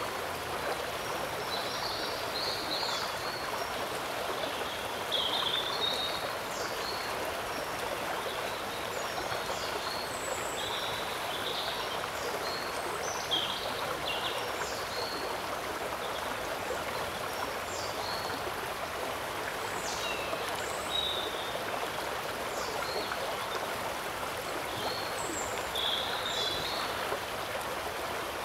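Shallow water flowing and rippling steadily. Many short, high chirps from birds are scattered throughout.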